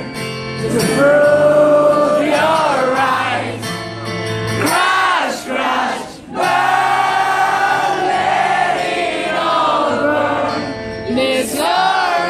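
Live concert music: singing in long held, wordless notes, with the audience singing along.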